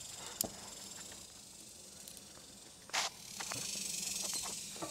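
Light clicks and a short scrape of hand tools on the metal lugs of an electric meter base. The scrape, about three seconds in, is the loudest sound. Behind it runs a steady high hiss that swells past the middle.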